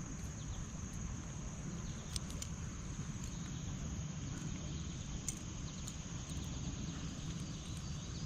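Steady high-pitched insect chorus, one unbroken tone, over a low rumble, with a few faint clicks about two and five seconds in.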